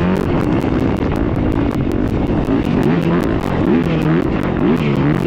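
Motocross dirt bike engine revving up and down again and again as the throttle is worked over the track, heard from the rider's helmet camera.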